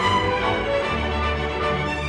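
Recorded music played through the large ESD Acoustic horn loudspeaker system, with a strong low bass note coming in about a second in.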